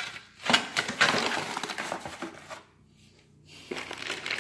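Boxed car parts being handled: two sharp clicks about half a second apart, then rustling of packaging, a short near-silent pause past the middle, and rustling again near the end.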